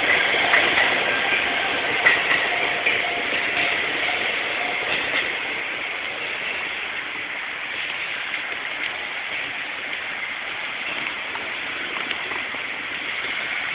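A Seibu line train passing at the railroad crossing, its wheels and cars running over the rails in a steady rush of noise, with a few faint held tones in the first few seconds; it eases off a little after about four seconds.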